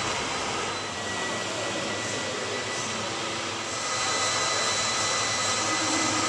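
Vacuum pump running steadily with a thin whine, drawing the air out from between clear PVC sheets to shrink-wrap a performer. It grows a little louder nearly four seconds in.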